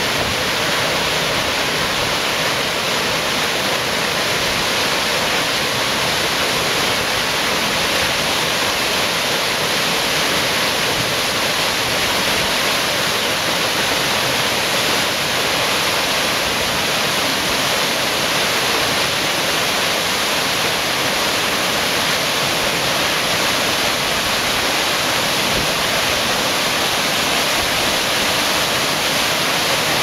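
Waterfall and cascade of a canyon creek pouring over rock slabs into a pool: a steady, even rush of water that doesn't change.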